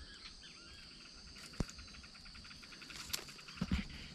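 Steady high insect chirring, with a few short bird calls in the first second. A sharp click comes about a second and a half in, and a couple of soft knocks near the end.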